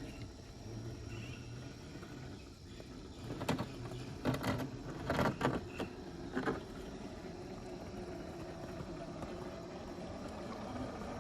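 Water sloshing and splashing as a scale RC crawler drives through a creek, with a run of sharp splashes or knocks in the middle over a steady background of running water.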